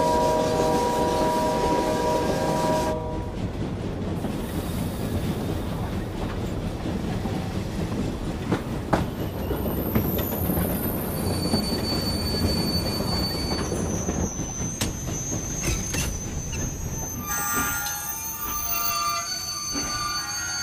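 Steam locomotive whistle sounding a steady chord for about three seconds, then the locomotive running heavily along the rails with a few sharp clanks. From about halfway in, high wheel and brake squeals set in and grow busier near the end as it slows into a station.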